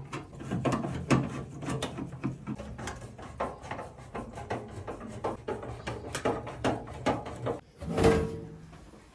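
Screwdriver working the casing screws of a Worcester Bosch Greenstar boiler, a run of small clicks and scrapes, then about eight seconds in a louder clatter with a brief ring as the boiler's front case is lifted off.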